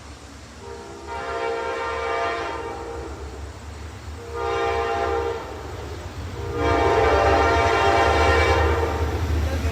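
Amtrak locomotive horn sounding three blasts: a long one, a short one, then the longest and loudest, each a chord of several tones. The train's low rumble runs underneath and grows louder near the end.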